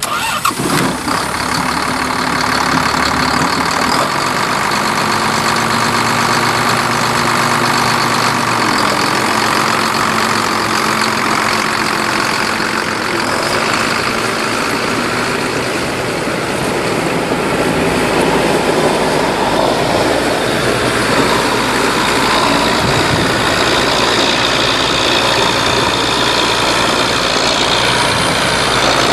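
John Deere 7810 tractor's 8.1-litre six-cylinder turbo diesel running steadily as the tractor drives and turns, with the engine note shifting about nine seconds in.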